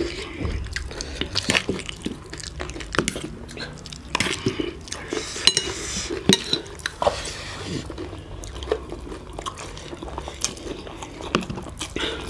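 Forks and spoons clinking and scraping against plates at irregular intervals as two people eat spicy noodles, with the wet sounds of eating.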